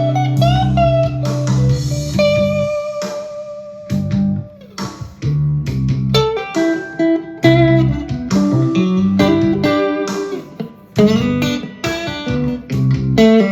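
Electric guitar, a Harley Benton TE-62CC Telecaster-style, playing lead lines with string bends and a long held note early on, over a backing track in G.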